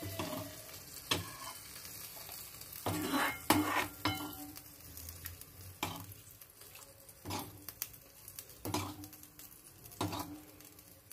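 Egg curry gravy being tipped and scraped out of a bowl into a takeaway container, with wet scraping and irregular knocks of dish against dish.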